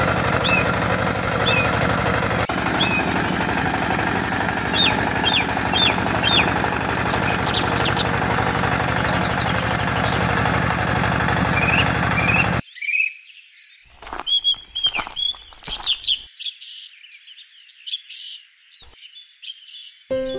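A tractor engine running steadily with birds chirping over it. About two-thirds of the way through, the engine cuts off abruptly, leaving only scattered bird chirps.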